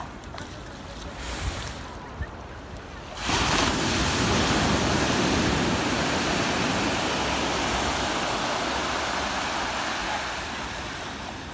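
Surf washing onto a sandy beach: low at first, then a wave breaks about three seconds in with a loud, hissing rush that slowly eases off near the end.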